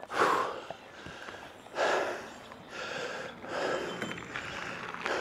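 A man breathing hard and audibly, a noisy breath about once a second, winded from a steep uphill hike.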